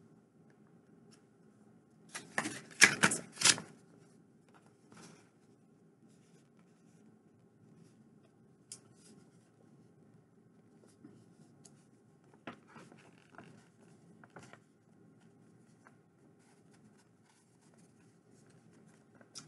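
Packaging rustling and crinkling as an item is unwrapped and handled: a short run of loud crinkles about two to three and a half seconds in, then scattered faint rustles over a low steady room hum.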